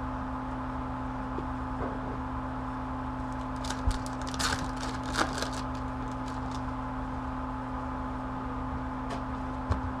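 Hockey card pack wrapper crinkling and tearing open, with cards being handled, in short crackly rustles about three to five seconds in and again near the end, over a steady electrical hum.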